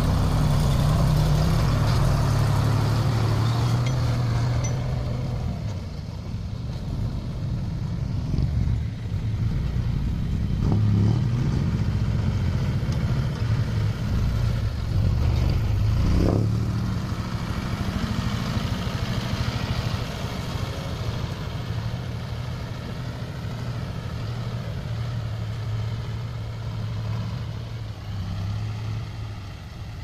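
Diesel engine of a loaded UD Condor dump truck running as the truck drives by on a dirt track, with a short rattle about halfway through. The engine sound grows fainter in the last part.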